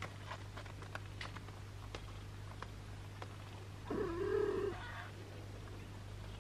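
A kitten gives one loud, wavering meow lasting about a second, around four seconds in, after a few soft clicks from the nursing kittens.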